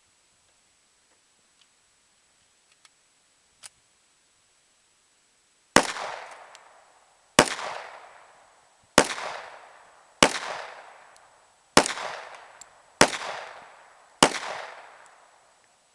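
.45-calibre semi-automatic pistol fired seven times at a steady pace, a shot every one to one and a half seconds, each shot trailing off in a fading echo. A few faint clicks come before the first shot.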